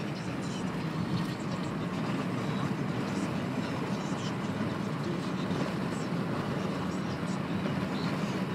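Steady cabin noise of a car being driven: the engine and tyres on the road make an even low hum inside the car.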